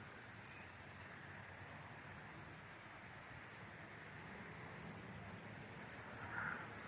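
Outdoor riverbank ambience: a steady hiss of wind, with scattered short, high chirps about once every half second and a brief louder rustle near the end.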